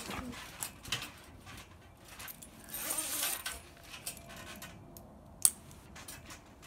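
Trampoline being bounced on: its metal springs jingling and the mat giving irregular knocks and thumps, with one sharp click about five and a half seconds in.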